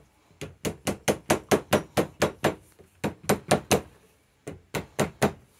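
A mallet striking a fork seal driver, knocking a new fork seal down into a motorcycle fork leg. The blows come quickly, about four or five a second, in three runs with short pauses between them.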